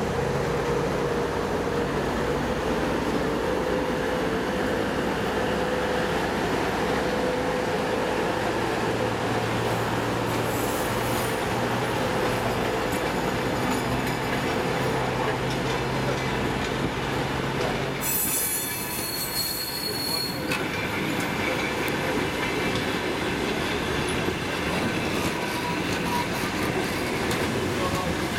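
A diesel-hauled passenger train pulling out slowly. The TEP70BS locomotive's diesel engine hums steadily as it passes and draws away, fading out partway through, while the coaches roll past with wheel and track noise. About two-thirds of the way in comes a high-pitched hiss with a squeal, lasting about two seconds.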